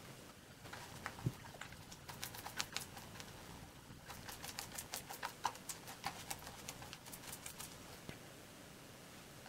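Faint, irregular ticking and tapping of a small bristle brush dabbing wet resin into fibreglass cloth on a wooden hull, several light taps a second with short pauses.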